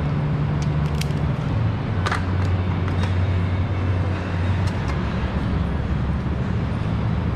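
Engine idling steadily, its low hum dropping slightly in pitch about a second and a half in, with a few light clicks.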